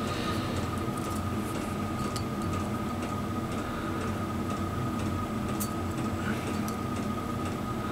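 Light, scattered metal ticks as a feeler gauge blade is worked into a piston ring's end gap inside the cylinder bore, over a steady background hum with a constant high whine.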